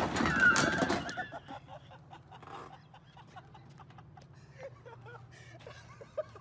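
A loud, noisy clatter and scrape for about the first second as the car drops off the trailer onto the pavement, then the car's engine running faintly as it pulls away, with faint voices.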